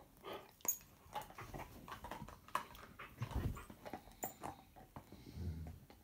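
Two Bernese Mountain Dogs, an adult and a puppy, play-wrestling on a sofa: rustling and scuffling with short soft dog vocalizations, and a low growl a little after five seconds in.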